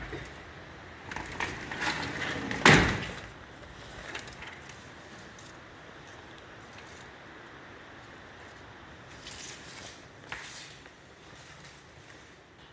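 A hiker's steps and scuffs on a forest mountain path: a run of crunching, scraping sounds in the first three seconds, the loudest a sharp scrape about three seconds in, then a quieter stretch with a few faint clicks.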